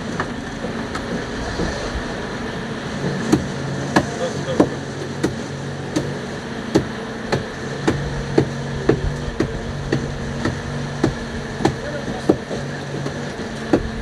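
Fishing boat's engine running steadily, with a regular sharp knocking of about two knocks a second from about three seconds in.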